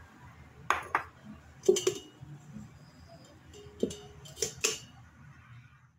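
Plastic sieve shaken over a stainless steel mixing bowl while sifting flour, its rim knocking and clinking against the bowl several times in short, separate strikes.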